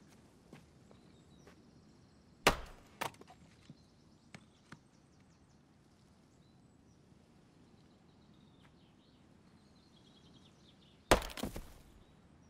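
Axe chopping wood: a sharp, loud chop about two and a half seconds in, with a lighter knock just after and a few small clicks of pieces falling, then another loud chop near the end.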